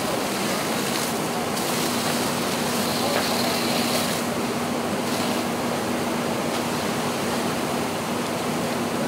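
Steady rushing hiss of a fire hose stream on a burning car. A steady low hum joins about a second and a half in.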